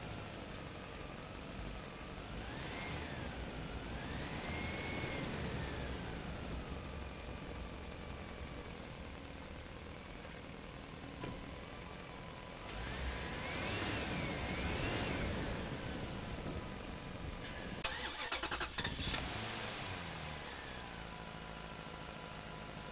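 Radio-controlled model excavator's electric motors whining, the pitch rising and falling as the boom and bucket move, in two spells. Near the end comes a brief burst of clattering.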